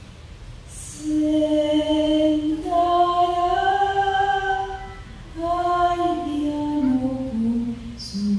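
A woman singing unaccompanied in slow, held notes: one phrase begins about a second in, and a second phrase follows after a brief pause near the middle.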